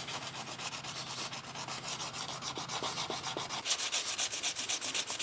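Hand sanding block scraping back and forth in quick, even strokes over a painted car side skirt, smoothing away flaking paint.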